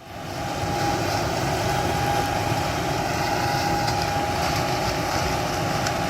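Heavy farm machinery running steadily, a low rumble with a constant whine over it, fading in at the start.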